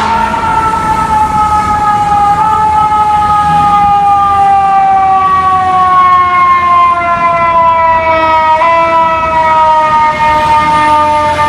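Fire truck's mechanical siren winding down in one long wail, its pitch sliding slowly lower throughout, with two slight upward nudges along the way.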